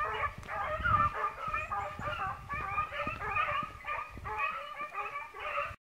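A pack of Swiss hounds (Schweizer Laufhunde) baying in chorus, many voices overlapping without a break, the cry of scent hounds giving tongue. It cuts off abruptly at the end.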